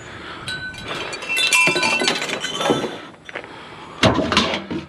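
Metal pans clanking and rattling against each other as they are handled, with short ringing clinks, then a louder clatter near the end.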